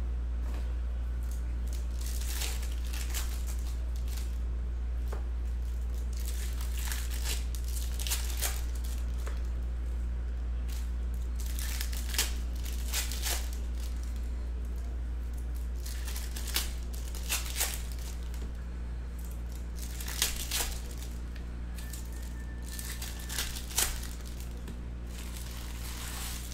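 Foil wrappers of 2018 Bowman Chrome baseball card packs crinkling and tearing as the packs are ripped open, in a string of short crackly rips. A steady low hum runs underneath.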